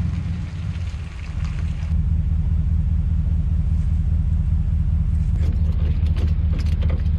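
Pickup truck's 6.2-litre V8 engine running with a steady low rumble, growing louder about two seconds in as the truck pulls the loaded log trailer.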